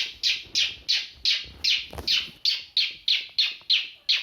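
A mimicry artist imitating a bird-chirp doorbell with his voice: a rapid, even run of falling chirps, about three a second.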